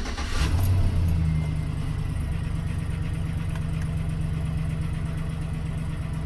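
2008 GMC Sierra 1500's Vortec 4.8 V8 just started: its revs flare up for the first second or so after catching, then settle into a steady idle.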